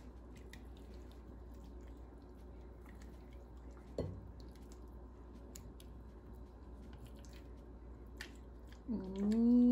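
Thick blended marinade poured over raw chicken in a glass bowl and squished into the meat by hand, with small wet clicks and a knock about four seconds in. Near the end a cat gives one long meow that rises and then falls, the loudest sound here.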